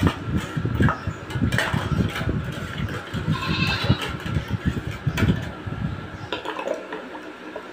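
A metal ladle stirs and scoops a red iced drink, sloshing the liquid and clinking against the bowls and the ice. A high call sounds in the background about three and a half seconds in.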